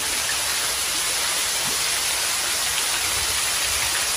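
Rain falling on the surface of a swimming pool: a steady, even hiss.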